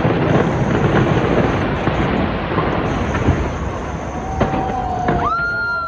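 Fireworks display: a dense, continuous rumble of many shells bursting, thick with cracks and booms. A couple of steady whistling tones join near the end.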